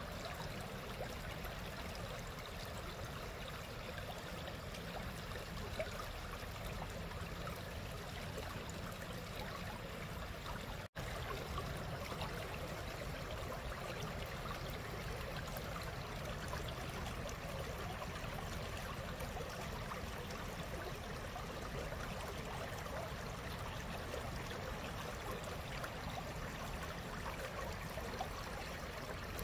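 Small woodland stream flowing over stones and roots, a steady babbling rush, dropping out for an instant about eleven seconds in.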